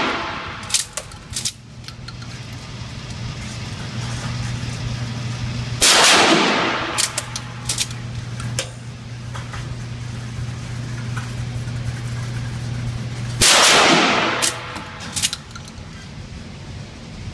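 Mossberg 500 pump-action shotgun fired twice, about seven and a half seconds apart, each blast ringing out and echoing down the indoor range. After each shot come a few sharp clacks of the pump being worked to chamber the next shell.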